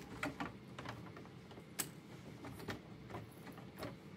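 A handful of faint, irregular plastic clicks and taps as hands work the Xerox WorkCentre 3335/3345 scanner's carriage to free its ribbon cable.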